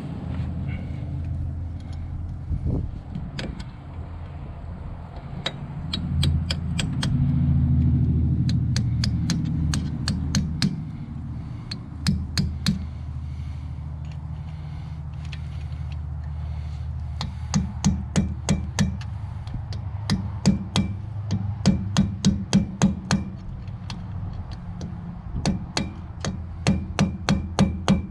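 Rapid runs of hammer taps on metal, about four or five strikes a second, over a steady low hum.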